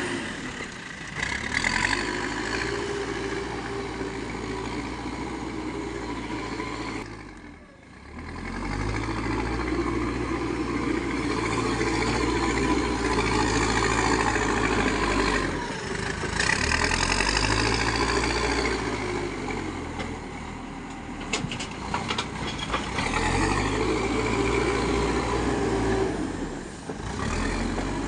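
Backhoe loader's diesel engine running and revving up and down again and again as it works its hydraulics, with a few sharp knocks about two-thirds of the way through.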